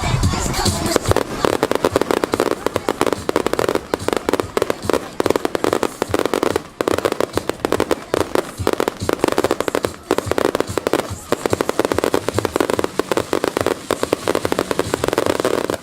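Fireworks going off in a continuous rapid barrage, dense sharp bangs and crackling with hardly a gap.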